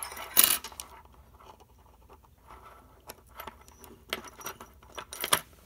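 Keys and washers clicking and rattling against the metal side plates of a KeyBar key organizer as it is lined up and screwed together with a small screwdriver. The loudest clack comes about half a second in, with scattered lighter clicks after it.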